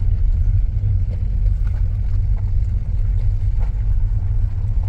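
Car driving along a village road, heard from inside: a steady low rumble of engine and road noise.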